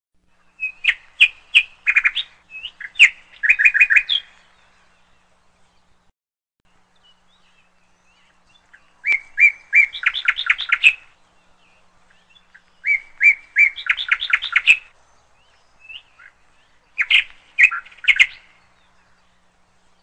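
Common myna calling: four bouts of rapid, repeated sharp chattering notes, each a second or a few long, with pauses of several seconds between them.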